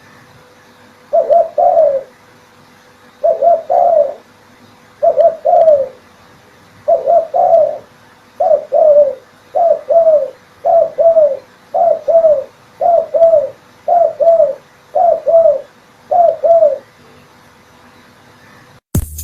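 Spotted dove (tekukur) cooing over and over, each call a short phrase of two or three low notes, repeated about every second and a half. Electronic music cuts in at the very end.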